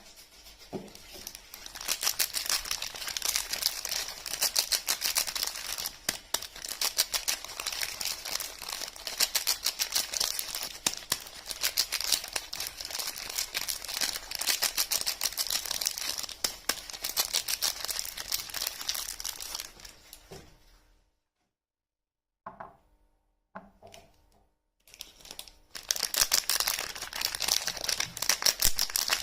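Soap packaging being unwrapped by hand: a long run of dense, rapid crinkling and tearing of wrapper material. It breaks off about two-thirds of the way through, leaves a few short handling sounds, and starts again near the end.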